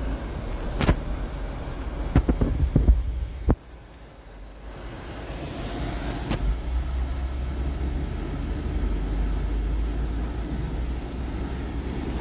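Low rumble of a car heard from inside the cabin. Several sharp knocks and clicks in the first few seconds stop suddenly, then the rumble grows louder and stays steady from about five seconds in.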